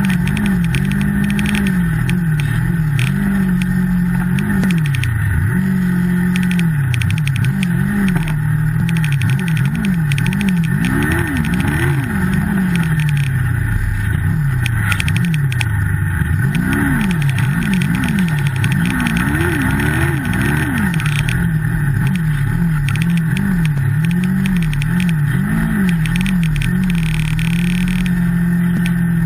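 Yamaha snowmobile with an MCX turbo kit running hard through deep snow, its engine pitch rising and falling again and again as the throttle is worked.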